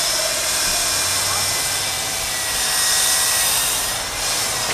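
Water-fed electric diamond core drill running steadily as it bores into concrete, a steady hiss with a faint motor whine.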